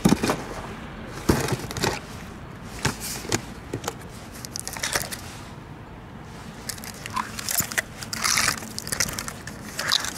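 Handling noise from a cardboard firework battery being turned in the hands and set down on the ground: irregular knocks, scrapes and crinkling, the loudest near the start.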